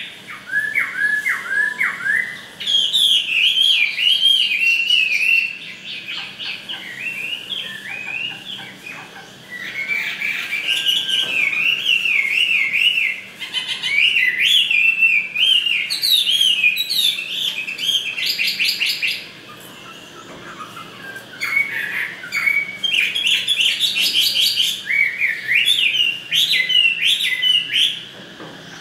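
Chinese hwamei singing: fast, varied whistled and warbled phrases in long bursts, with a couple of brief lulls.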